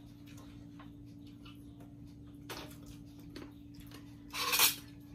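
Cutlery clicking lightly against plates, with a brief louder noise about four and a half seconds in, over a steady low hum.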